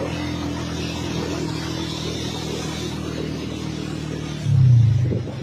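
A road vehicle's engine runs steadily while driving on a wet road, with a faint hiss of tyres on the wet surface. A louder low sound comes in about four and a half seconds in.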